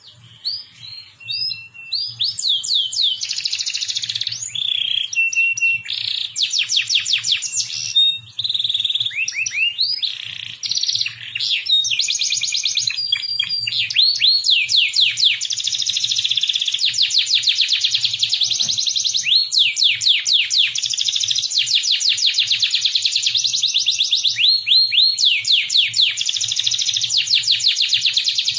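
Songbird singing loud, fast trills of rising notes, about ten a second, with short gaps and changes of phrase at first and near-continuous trilling from about twelve seconds in. A faint low hum lies underneath.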